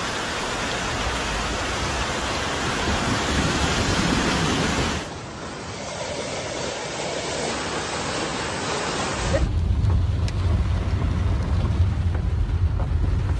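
Steady rushing of muddy floodwater pouring across a street, with a cut at about five seconds to a quieter water noise. From about nine seconds, a deep rumble from inside a car driving through heavy rain, with a few faint clicks.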